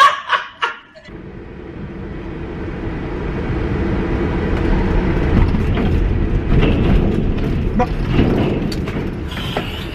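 Vehicle cabin noise of a moving truck: engine and road rumble that builds steadily over several seconds as it picks up speed, then holds.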